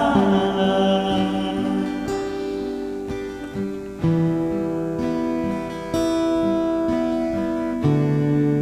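Instrumental break in a Thai luk thung song: a strummed acoustic guitar with band backing, playing sustained chords that change about every two seconds.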